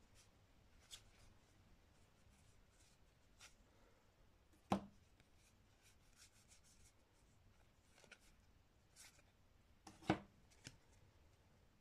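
Playing cards being handled and flicked through one by one: faint light clicks and slides of card against card, with two louder taps, one near the middle and one near the end.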